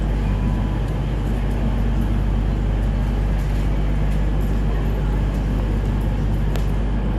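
Steady low engine hum, its level and pitch unchanging, with a few faint ticks near the end.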